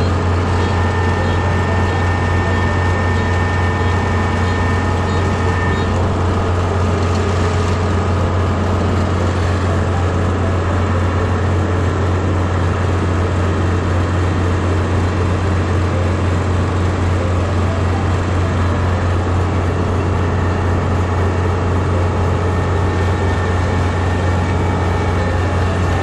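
Kubota combine harvester running steadily, a loud, even engine drone with a strong low hum.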